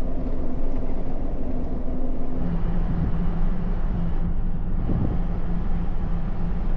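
A Jeep Gladiator being driven, its engine droning steadily over road rumble. The engine note steps down to a lower pitch about two and a half seconds in.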